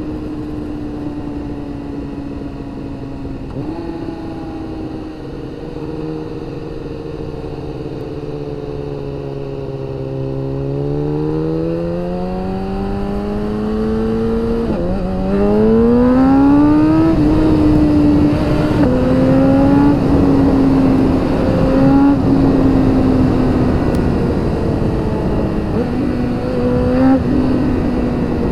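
Superbike's inline-four engine under way with wind rush. It holds a steady, slowly sinking note, then about a third of the way in the revs climb, drop sharply at a quick upshift and climb again. For the rest of the clip it runs louder, with a few smaller shifts in pitch.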